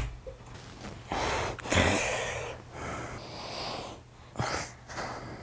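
A door bangs shut right at the start, then a person's heavy breathing: two long, noisy exhales like sighs, followed by a couple of shorter breaths near the end.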